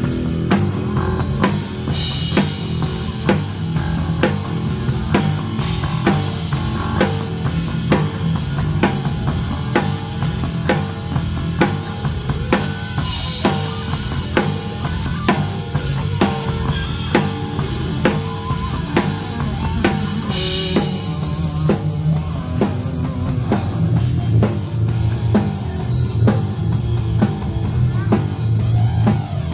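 Rock band playing live on stage. A drum kit keeps a steady beat of kick and snare, with cymbal crashes about 2, 13 and 20 seconds in, and low sustained notes run underneath.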